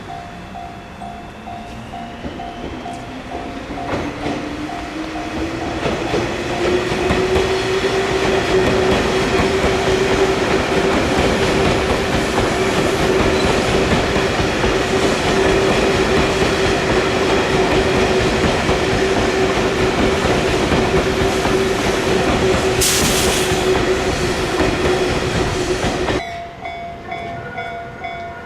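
E351 series electric train approaching and passing close by with a level-crossing bell ringing. The motor whine rises in pitch over the first several seconds, then holds steady under loud wheel and car noise. Near the end the sound cuts off abruptly to another crossing bell ringing on its own.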